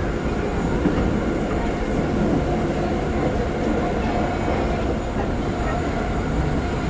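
Osaka Metro New 20 series subway car with Hitachi GTO-VVVF drive, heard from inside running through the tunnel at a steady speed. Wheels and car body give a constant rumble with a faint steady whine over it.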